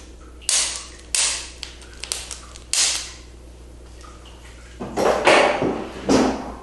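Sharp cracking pops of spinal joints releasing under a chiropractic adjustment of the neck at the C4 vertebra: three loud cracks in the first three seconds with a couple of small clicks between, then a longer, rougher burst of noise with two peaks near the end.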